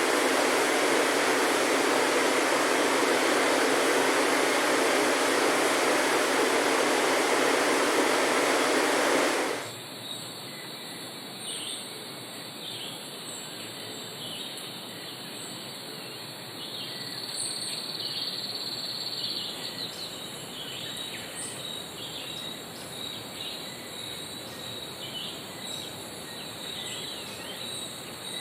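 A loud, steady rushing hiss cuts off sharply about ten seconds in, leaving a quieter tropical forest background with brief high bird chirps and whistles and a faint insect hum.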